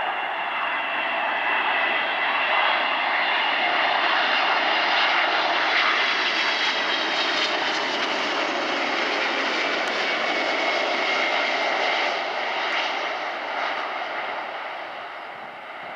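Boeing 777's twin turbofan engines on final approach passing low overhead: a loud jet rush with a whine that slowly drops in pitch. The sound fades over the last few seconds.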